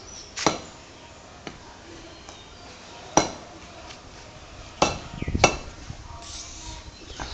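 Several sharp knocks at irregular intervals, each a short crack with a brief ring, the loudest pair a little over three seconds and about five seconds in.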